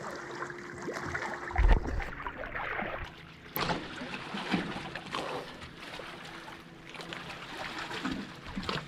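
Water splashing and lapping around a kayak, with a dull thump a little under two seconds in.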